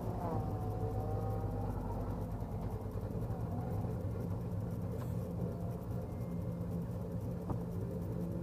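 2005 Crown Victoria's V8 idling steadily, a low even rumble, with a faint whine that slides in pitch over the top. A few light clicks near the end as the driver's door opens.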